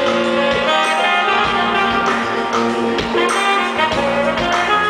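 Live smooth-jazz band playing: a saxophone carries the melody in held notes over electric guitars, keyboards and drums.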